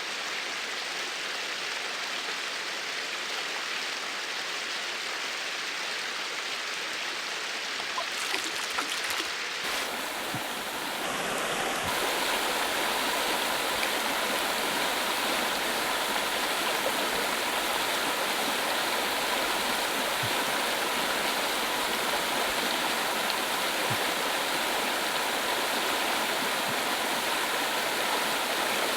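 Fast-flowing mountain stream rushing steadily. About a third of the way in the sound shifts and gets louder, then runs on evenly.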